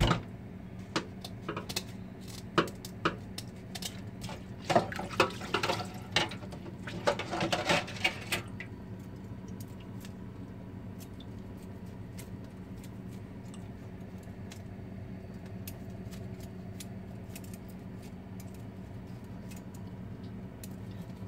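A knife scraping a whole milkfish over a metal basin in a sink: a run of scrapes and sharp clicks, in two thick clusters a few seconds in, then only occasional faint clicks over a steady low hum.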